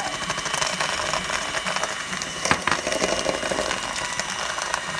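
Electric hand mixer running steadily, its beaters churning butter and brown sugar in a metal bowl, with one sharp knock about two and a half seconds in.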